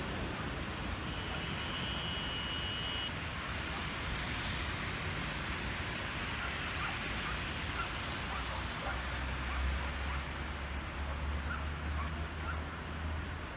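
Hail and rain falling steadily, a dense even hiss with scattered small ticks. A low rumble joins about nine seconds in.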